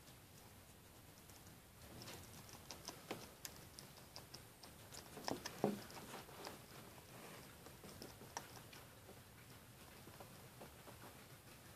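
Pet hedgehog chewing dry kibble from its bowl: faint, irregular crunches and clicks, with a louder cluster of crunches a little past halfway.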